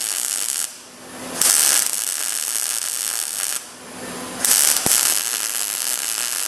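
Welding arc crackling and hissing on the Camaro's sheet-metal cowl patch, laid down in three short runs with brief stops between them, each run starting loudest: stitching across a gapped butt joint and building the weld up bit by bit.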